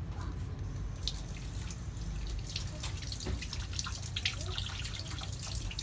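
Water running from a wall tap and splashing over hands being washed at a sink, starting about a second in.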